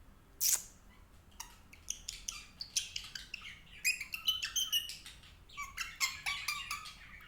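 Baby Indian ringneck parakeet chattering: a quick string of short, high-pitched chirps and babbled notes, with one short, loud, harsh squawk about half a second in.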